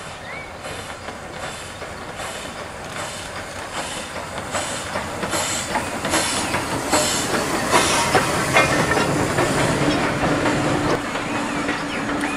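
S&DJR 7F 2-8-0 steam locomotive No. 53808 working a passenger train past, its exhaust beats coming about twice a second and growing louder as it draws nearest. The coaches' wheels clatter over the rail joints as they follow.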